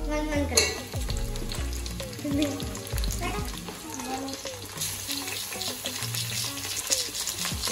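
Chunks of raw meat sizzling as they go into hot oil with browned onions in a steel cooking pot, the crackle thickening about five seconds in. Background music plays under it.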